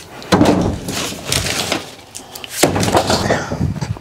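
Split firewood logs knocking and scraping against each other as they are pulled from a stacked pile, in three clattering bursts.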